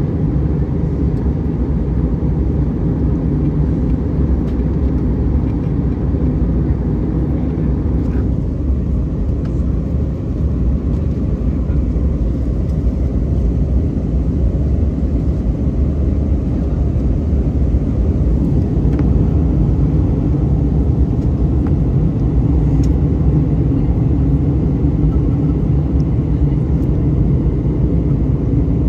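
Steady cabin noise of an Airbus A319-131 in flight on approach: a low, even rumble of its IAE V2500 engines and the airflow over the fuselage.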